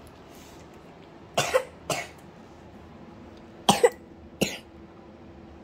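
Someone coughing in two short fits: a couple of coughs about a second and a half in, then two or three more near four seconds.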